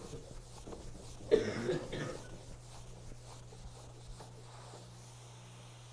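A cough about a second and a half in, the loudest sound here, then faint rubbing of a felt eraser on a chalkboard over a steady low hum.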